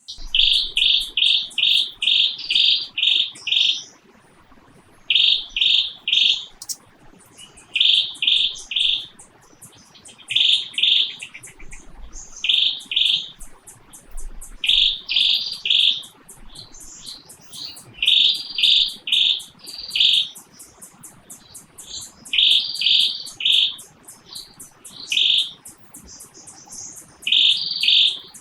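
A bird calling loudly in short bursts of three to five quick chirps, repeated every second or two, over the fast, steady, high ticking of insects.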